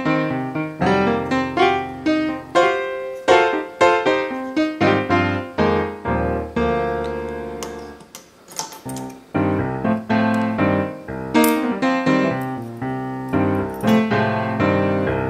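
Background piano music: a steady run of struck notes, thinning out briefly about halfway through.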